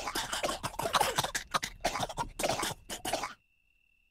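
Cartoon voices coughing in a quick irregular run of short coughs, stopping abruptly about three and a half seconds in.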